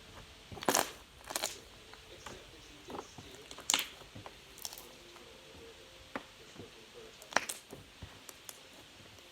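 Slime being squeezed and kneaded, giving irregular wet crackles and pops, the loudest about a second in, near the middle and toward the end.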